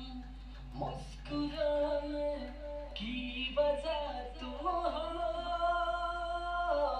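A recorded singing voice playing back through a vocal effects chain of auto-tune, compressor, ping-pong delay, phaser and flanger. It sings a phrase of several notes and ends on a long held note.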